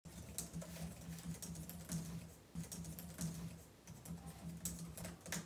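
Typing on a laptop keyboard: quick, irregular key clicks over a faint low hum.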